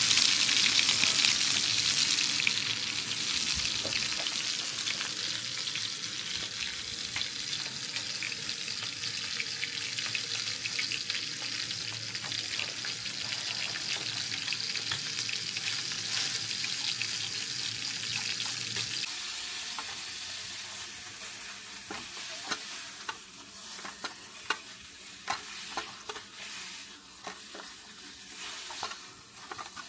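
Food sizzling and crackling as it fries. The sizzle fades gradually, and in the second half it thins to scattered separate pops.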